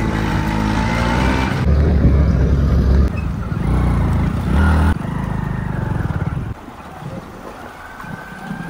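Small petrol scooter engines running as several scooters ride along a bumpy dirt track, with heavy low rumble on the microphone. The sound jumps abruptly in level several times, then turns quieter and thinner about two-thirds of the way through.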